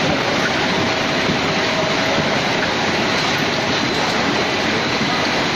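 Food-processing machinery running steadily: a constant rushing mechanical din with a faint steady whine on top.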